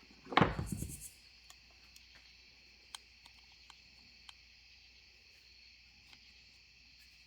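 A short, loud clattering knock about half a second in, then a few faint scattered clicks: parts and tools being handled during hand work on fuel pump wiring. A steady high-pitched drone runs underneath.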